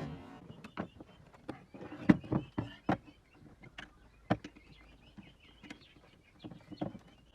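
Irregular clicks, taps and knocks of small parts and tools being handled, with louder knocks about two seconds in and a sharp one a little past four seconds.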